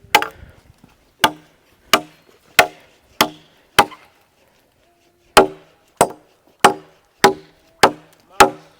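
Machete blade chopping into a wooden log in steady repeated strikes, about a dozen blows at a bit under two per second, each with a short metallic ring. The chopping pauses briefly about four seconds in, then resumes.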